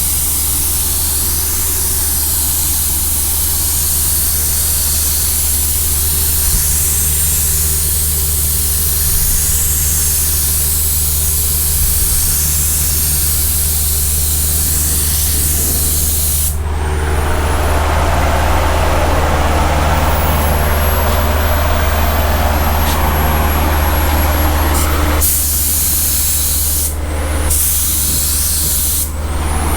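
Paint spray gun spraying primer, a steady hiss of air and atomised paint over a constant low hum. About halfway through a louder spell of air hiss starts with a thin rising whine and runs for several seconds. It breaks off into short changes near the end.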